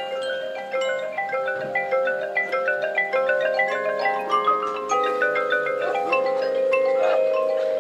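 Marching band front-ensemble mallet percussion, marimba and glockenspiel, playing quick runs of struck notes over longer ringing tones.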